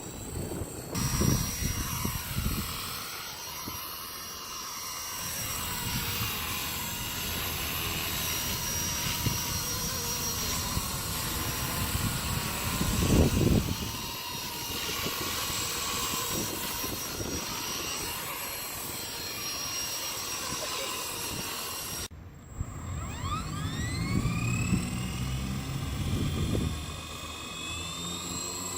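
Blade 230 S V2 RC helicopter flying: its electric brushless motors and rotors give a steady high whine that shifts in pitch as it manoeuvres. After a break about 22 seconds in, the whine rises as the rotors spin up again.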